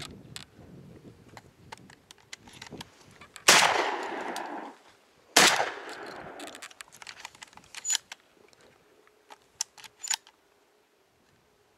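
Shotgun fired twice at flying doves, about two seconds apart, each loud shot trailing off for about a second. A few light clicks follow.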